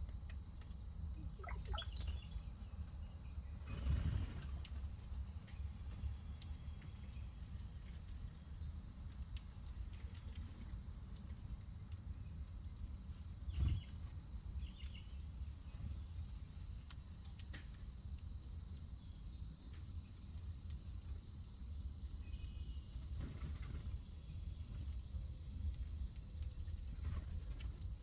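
Backyard birds at a feeder: one sharp, falling bird call about two seconds in, then scattered short chirps, with two soft knocks near 4 and 13 seconds. A steady high-pitched drone and a low rumble run underneath.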